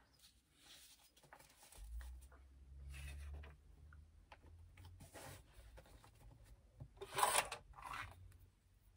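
Quiet rustling and rubbing of fabric pieces being handled and fastened together with sewing clips: a few short rustles, the loudest about seven seconds in, over a faint low hum for a second or two near the start.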